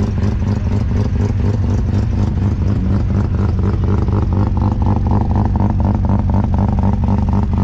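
A car engine running steadily at idle, with a loud low exhaust drone and a fast, even pulse.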